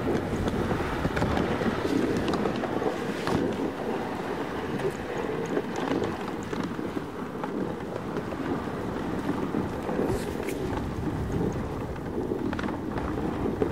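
Husky-drawn dog sled moving over snow: a steady rushing, rumbling noise with scattered light clicks, such as at about three seconds in and again near the end.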